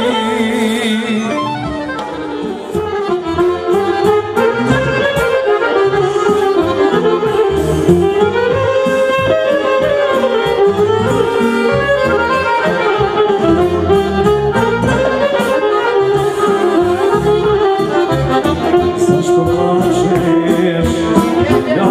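Live folk band playing an instrumental passage: a wandering lead melody over accordion and a steady beat.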